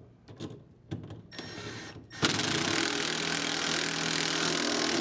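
Impact driver with a 14 mm socket running the pulley nut down onto the washer transmission shaft, a steady run of about three seconds that starts a little after two seconds in, seating the drive pulley as the nut tightens. A few light clicks and a short hiss come before it.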